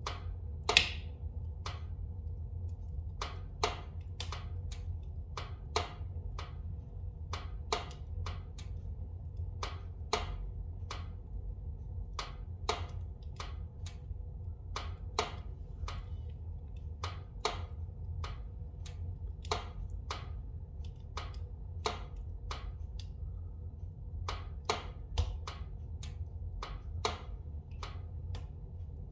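Spruce logs burning in a fireplace, crackling with irregular sharp pops a few times a second over a low steady rumble. The loudest pop comes about a second in.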